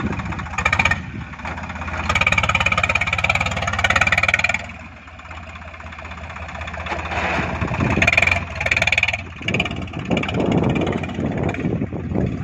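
Backhoe loader's diesel engine running steadily, louder in two stretches about two seconds and eight seconds in, as it works under load.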